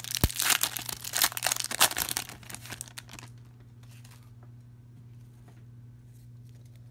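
Foil wrapper of an Upper Deck hockey card pack being torn open and crinkled for about three seconds. After that it turns quiet, with only the faint rustle of the cards being handled.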